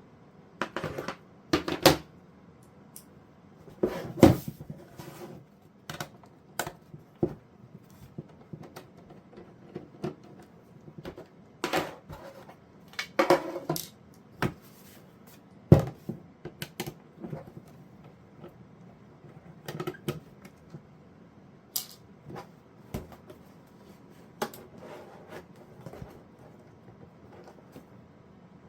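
Irregular clicks, knocks and light metallic clatter of hands working on a small electronics case with screws and a screwdriver, some strokes sharper and louder than others.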